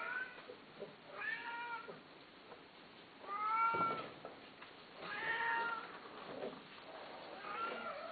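A cat meowing repeatedly: five separate drawn-out meows, one every second and a half or so, the loudest near the middle.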